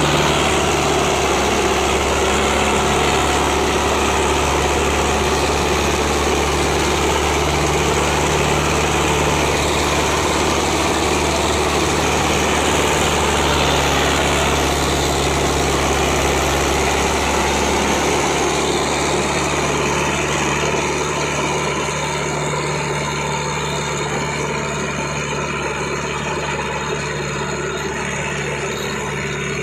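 Sonalika DI 750 III tractor's diesel engine running hard under load as it pulls a double disc harrow through soil. The engine note is steady, easing a little about two-thirds of the way through.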